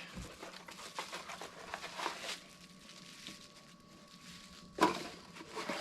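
Faint rustling and crinkling of packaging as a new compressor pressure gauge is unpacked, with a sharp click a little before the end.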